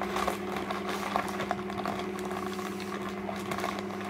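A steady low hum in a small room, with faint scattered clicks and rustles.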